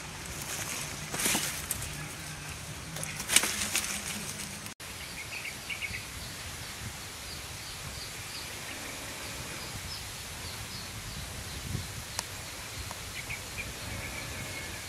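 Outdoor ambience: leaves rustling twice in quick bursts as plant stems are pulled, then a steady background with small birds chirping over and over in short high notes.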